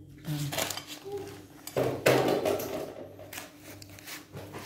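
Ceramic plates and a bowl clinking and clattering as food is served, a string of sharp knocks, the loudest about two seconds in, with short snatches of talk between them.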